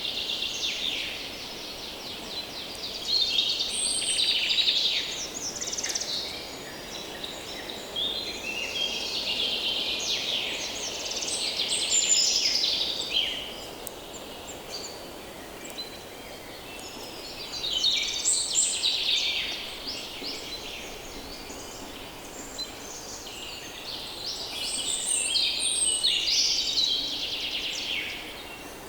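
Woodland songbirds singing in bouts of fast, varied twittering, about two to three seconds each, coming back roughly every seven seconds, four times. Beneath them lies a faint steady hum of distant human activity and breeze.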